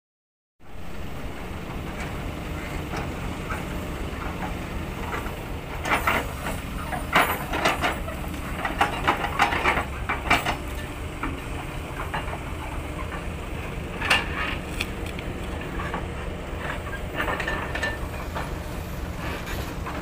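Diesel engine of a log-laden truck running with a steady low drone while the truck is bogged in mud, with irregular metallic clanks and knocks, most of them clustered in the middle.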